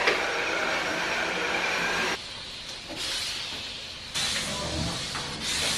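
Cordless stick vacuum running over a hardwood floor, a steady rushing hiss with a faint motor whine. The sound changes abruptly a few times where short takes are cut together.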